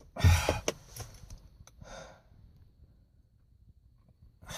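A person sighing heavily twice, with a few faint clicks in between. No engine cranks or runs; the car is failing to start.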